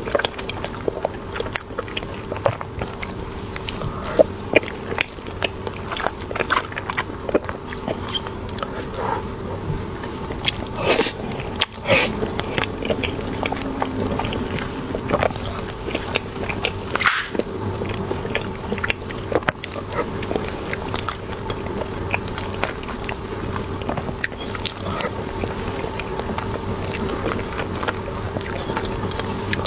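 Close-up chewing and biting of a soft cream cheese bun with a mochi filling: mouth sounds with many short clicks, going on throughout.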